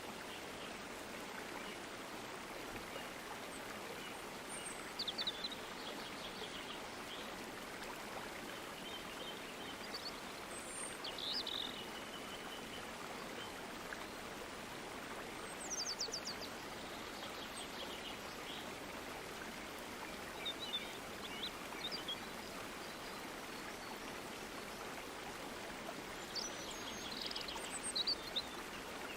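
Steady rushing of a flowing stream, with birds chirping briefly in short high phrases about five times over it.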